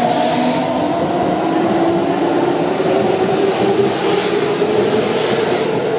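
Kintetsu 5800 series electric train accelerating away from a station platform: wheels running on the rails, with the traction motor whine slowly climbing in pitch as it gathers speed.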